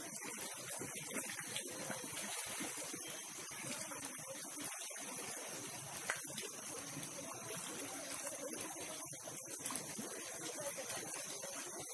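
Steady rushing of water, an even noise that does not change, with a thin constant high tone above it.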